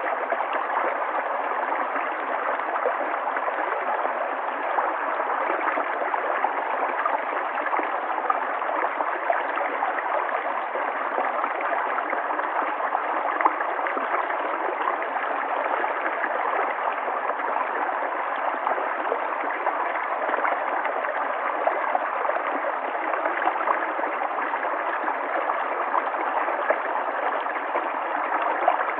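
River water flowing steadily, a continuous rush with small gurgles and splashes throughout.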